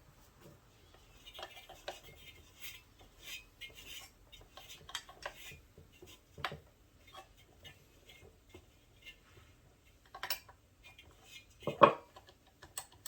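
Small metal objects being handled and set down, giving a string of light clinks and clicks, with one louder knock near the end.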